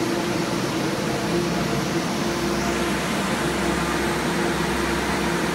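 Heavy-duty alternator/starter test stand running, a steady mechanical whir with a constant hum; a deeper low hum comes in about two seconds in.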